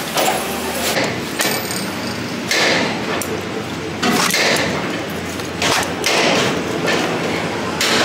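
Workshop clatter from hand assembly of a diesel engine: irregular metal knocks, clanks and scrapes of tools and parts, several short bursts about a second apart.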